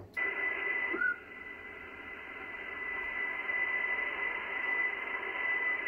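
HF transceiver's speaker hissing with 40-metre band noise while receiving single-sideband, with a steady high whistle running through the hiss. There is a short rising chirp about a second in.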